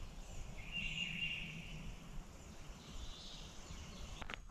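Faint songbirds calling in the woods at dawn over a low steady background hum. One clear note comes about a second in, with fainter calls around three seconds, and a short click near the end.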